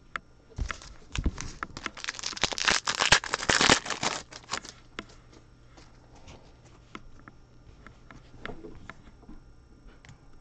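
Foil wrapper of a Panini Prizm football card pack being torn open and crinkled by hand, loud and continuous for about four seconds. After that come only light clicks and taps as the cards are handled.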